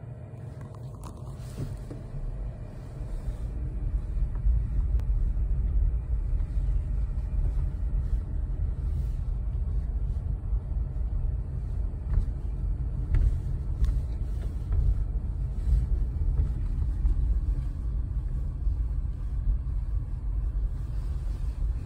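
Low, steady rumble of a car heard from inside its cabin as it drives slowly, growing louder a few seconds in.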